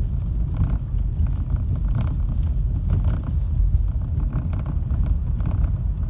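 Hydraulic power steering rack of a Ford Focus 3 knocking: repeated short knocks, roughly two a second and somewhat irregular, over a steady low rumble of the running car. The knocking comes from the steering rack.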